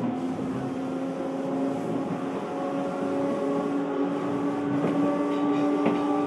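Inside an Odakyu 1000 series electric train car on the move: the traction motors give a steady whine whose tones rise slowly in pitch, over the rumble of wheels on rail. A couple of short knocks come about five seconds in.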